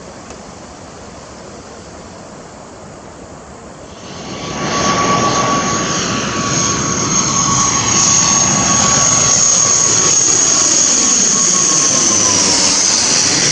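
A fainter jet-airliner rumble from a departing Boeing 787-9 fills the first few seconds. About four seconds in, an ATR 72-600 twin turboprop on landing approach comes in low and loud overhead: a steady propeller drone with a mid tone and a high whine. Near the end both tones drop in pitch as it passes over.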